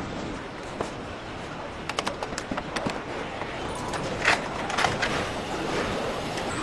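Car assembly line noise: a steady machinery hum with scattered sharp clicks and metallic knocks. The clicks come in a quick cluster about two to three seconds in, with a few louder knocks a little after four seconds.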